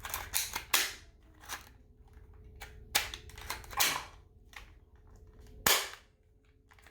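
Packaging being torn and pulled open by hand: a string of irregular sharp rips and snaps, the loudest a little before six seconds in.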